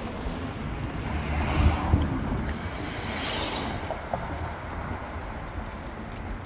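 Wind buffeting the handheld camera's microphone: a low gusty rumble that swells strongest about a second and a half in, with brief rises of hiss over faint street noise.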